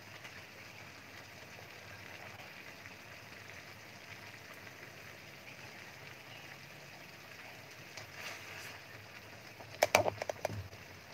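Chicken leg quarters simmering in marinade in a stainless steel wok, a faint steady bubbling and sizzling. Metal tongs clink against the pan a few times about ten seconds in as the pieces are turned.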